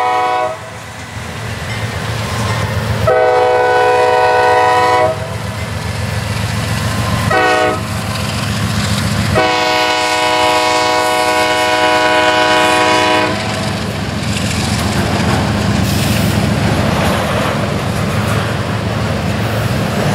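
Air horn of a CSX diesel locomotive leading an autorack freight train, sounding the grade-crossing signal: two long blasts, a short one about halfway in, then a last long blast, each a chord of several notes. Under it the diesel engines and rolling freight cars rumble steadily past with wheel clatter on the rails.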